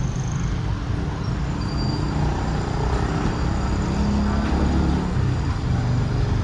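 An engine running steadily over a low road-traffic rumble, its pitch shifting about four seconds in.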